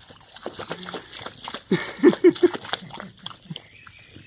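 A dog lapping and biting at a jet of water from a garden hose, with wet slurping and splashing. A few short, loud vocal sounds come in quick succession about two seconds in.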